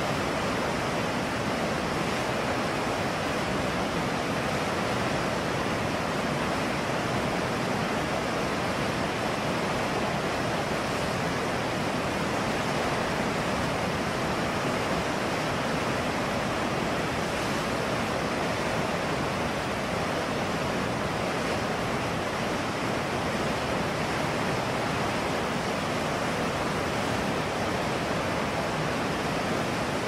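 Whitewater river rapids rushing over rocks: a steady, even roar of water.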